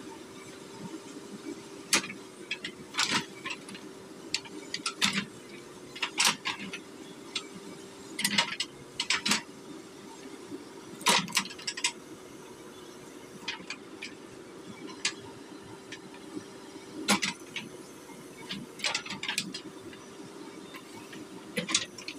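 JCB 3DX backhoe loader digging: its diesel engine runs steadily while the backhoe arm and bucket give an irregular series of sharp metallic clanks and knocks as they work the soil.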